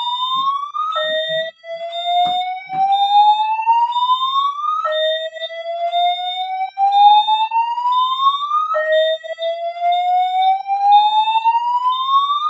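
Voice-evacuation fire alarm sounding the slow whoop evacuation tone: a tone sweeps upward over about four seconds, drops back and sweeps again, three times. Under it a high, rapidly pulsed beep keeps sounding. The system is in alarm from a smoke-tested detector.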